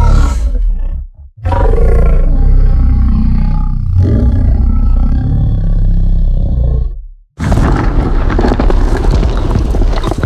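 Creature roars of the Reek, the rhino-like Star Wars beast: one roar ends about a second in, then a long, deep, pitched roar, and after a brief pause a harsher, rougher roar near the end.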